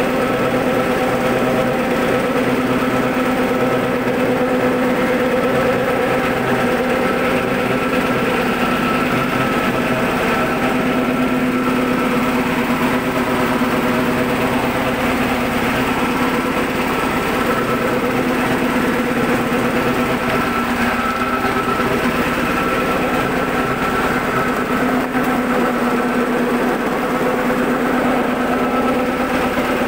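Soybean cracking and hull-separating machine running steadily while it processes soybeans, a continuous mechanical hum with a constant pitch that does not change.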